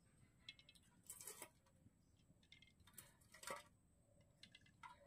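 Faint, scattered light taps and clicks of peeled boiled eggs and a steel bowl being handled at an empty aluminium wok, the loudest tap about three and a half seconds in.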